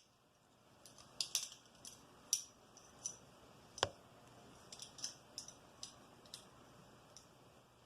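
Irregular small metallic clicks and scrapes as a broken drill press spring, stuck in its housing, is worked loose by hand. The sharpest click comes about four seconds in.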